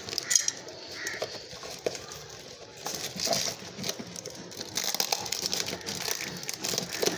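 Parcel packaging being torn open by hand, the plastic wrap and tape crinkling and crackling in irregular rustles.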